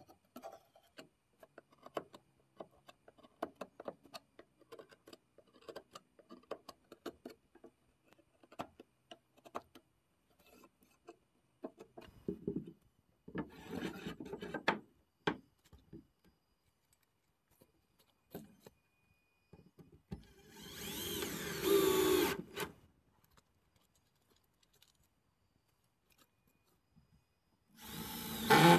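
Hand chisel scraping and clicking lightly along a groove in a pine board for about ten seconds, then a few knocks and rubs of wood. Later a cordless drill runs in two bursts, about two seconds near the middle of the second half and again briefly at the end, driving screws into the board.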